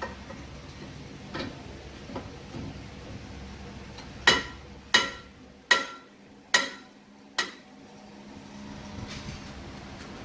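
Metal struck five times in quick succession, about a second apart, each blow ringing briefly, with a few faint knocks before them.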